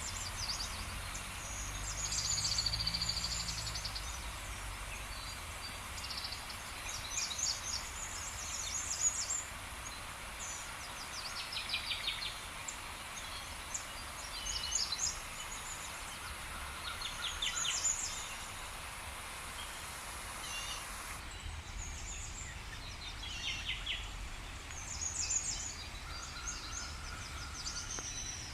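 Small birds chirping and trilling on and off over a steady outdoor hiss, with a brief low rumble about two to four seconds in.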